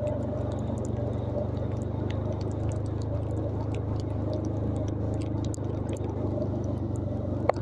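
Steady low drone of a small ride-on vehicle's engine moving slowly over a waterlogged dirt track, with light scattered pattering of rain and splashing water. One sharp click near the end.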